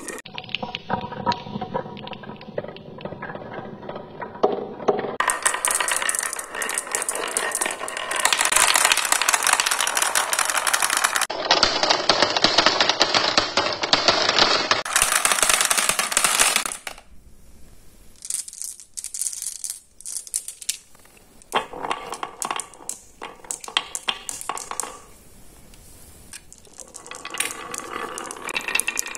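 Marbles rolling and clattering through a wooden marble run, with dense, fast clicks as they knock against each other and the wooden track and drop into a plastic tray. It goes quieter for a few seconds past the middle.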